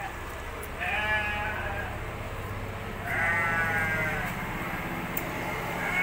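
Sheep bleating: two drawn-out bleats, each just over a second long, about a second in and about three seconds in, with a third starting at the very end.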